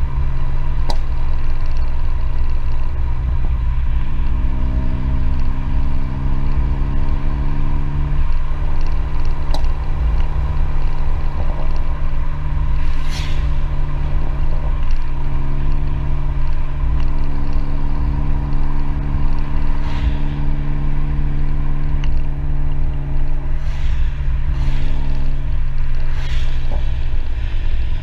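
A remapped Vauxhall Z20LET 2.0 turbo four-cylinder engine and exhaust running steadily as the van cruises, under heavy wind and road rumble on the outside-mounted camera. A few sharp clicks come through, and the engine note drops near the end as the throttle eases.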